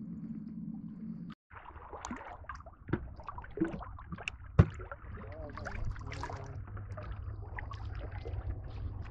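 Noises aboard a small fishing boat: a steady low hum that cuts off abruptly about a second and a half in, then scattered knocks and clatter over a low rumble, with one sharp, loud knock near the middle.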